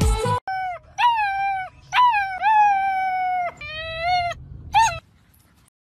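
Weimaraner puppy howling: about five high-pitched howls in a row, each leaping up and then sliding slowly down in pitch, the longest about a second and a half and the last one short.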